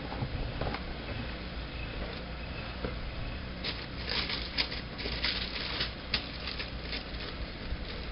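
Tissue paper rustling and crinkling inside a cardboard shoebox as the box is opened and unpacked, busiest around the middle, with quieter handling of the box before and after.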